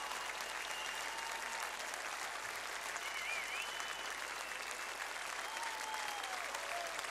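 Large audience applauding steadily, a continuous dense clapping.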